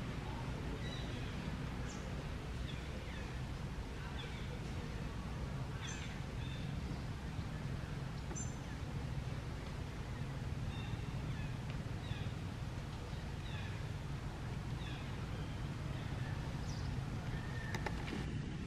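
Short, high, falling animal squeaks or chirps, about one a second, over a steady low rumble.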